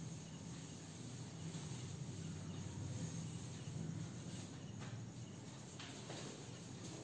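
Faint background noise: a low steady hum with faint, high, repeated chirping, and a few soft taps about five to six seconds in.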